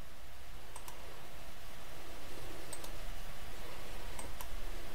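Computer mouse clicking, four short clicks spaced over a few seconds, over a steady low background hum.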